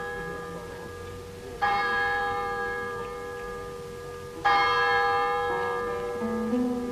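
Church bell tolling: two strokes about three seconds apart, each ringing on and slowly fading. Near the end, plucked-string music comes in under the ringing.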